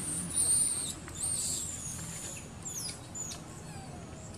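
Baby macaque's distress screams: a run of shrill, very high squeals, the last few sliding down in pitch and growing fainter.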